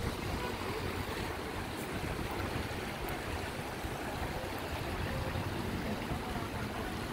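Shallow river water rushing over stones and small drops: a steady wash of noise, with wind rumbling on the microphone underneath.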